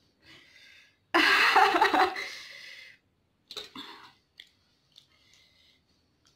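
A woman coughs hard for about two seconds, starting about a second in, with several loud coughs close together that then trail off. Short mouth clicks and faint handling sounds follow.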